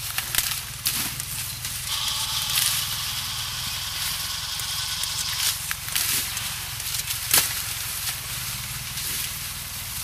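Dry sugarcane stalks and leaves rustling and crackling as a worker cuts cane by hand, with a few sharp chops of the blade, the loudest about seven seconds in. A steady low hum runs underneath.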